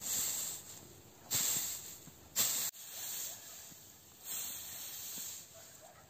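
Dry hay being raked off a stack with a metal hay rake: several rustling, hissing swishes, one per stroke.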